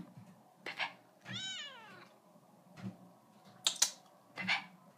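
Seal point Siamese cat meowing: a string of short calls with one longer, arching meow about a second and a half in. Two sharp clicks come between the calls a little past the middle and are the loudest sounds.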